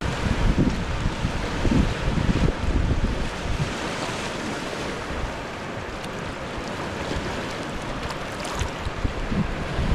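Lake Superior waves breaking on the shore, a steady wash of surf, with wind gusting across the microphone in loud low buffets, heaviest in the first few seconds.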